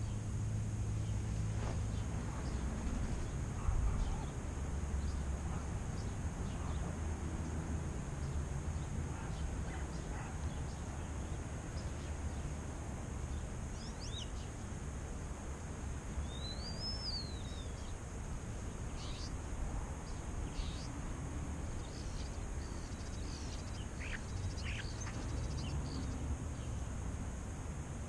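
Faint whistles and short calls from European starlings starting around the middle, including one whistle that rises and then falls, over a steady low outdoor rumble.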